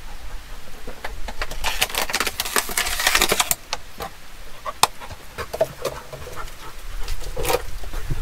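Plastic water bottle crinkling and crackling in a dense run of clicks for about two seconds as a dog grabs at it and it is pulled away, followed by scattered crinkles and a short crackle near the end.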